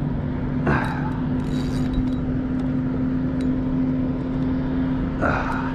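A steady low engine hum over constant wind and water noise, with two short rushing sounds, one about a second in and one near the end.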